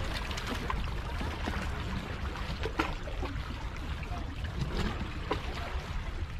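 Harbour water lapping and splashing against a rock in small irregular slaps, with wind rumbling on the microphone.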